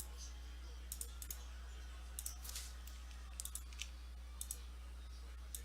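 Faint, scattered clicks from a computer mouse, several in quick pairs, over a steady low hum.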